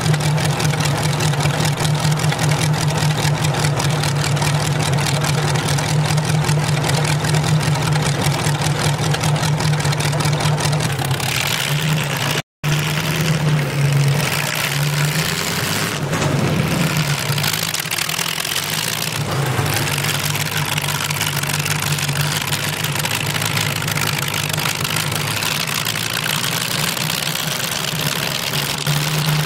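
Rover 3.5-litre aluminium V8 in a 1948 Volvo T22 tractor, running loud and steady through short open exhaust stacks. The note sweeps up briefly about sixteen seconds in as the tractor drives off, then settles again.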